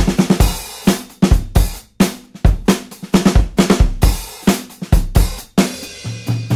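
Background music: a drum kit playing a steady beat of kick, snare and cymbals.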